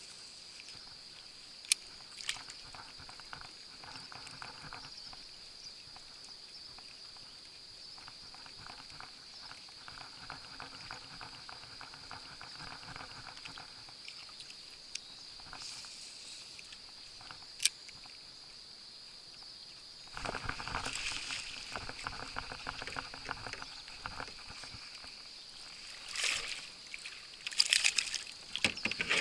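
Water sloshing and trickling around a small fishing kayak as it is paddled, growing louder and splashier about two-thirds of the way through and again near the end, over a steady high-pitched buzz, with a couple of sharp clicks.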